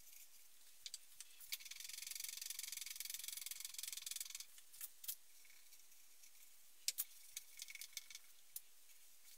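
Faint light rattle for about three seconds from hand work on a homemade table saw's wooden housing, followed by a few scattered soft clicks and taps.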